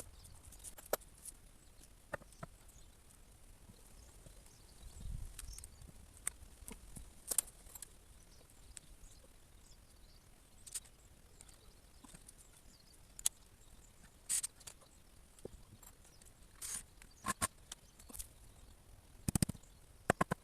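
Sparse, irregular knocks and clicks of timber being handled during deck work, with a dull thump about five seconds in and a quick cluster of knocks near the end.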